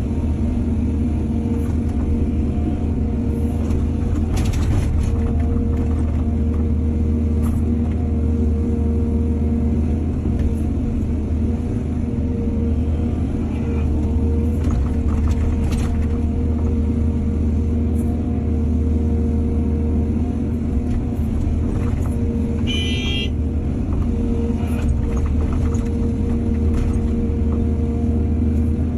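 Excavator's diesel engine running steadily under work, with a few short knocks and one brief high squeal late on.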